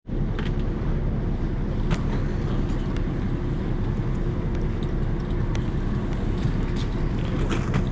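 Fishing boat's engine running steadily under way, a low rumble with a few short clicks and knocks on board.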